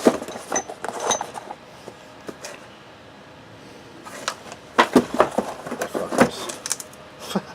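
Suspension parts and their packaging being handled: scattered clicks and light metallic clinks, with a cluster of louder knocks about five to six seconds in.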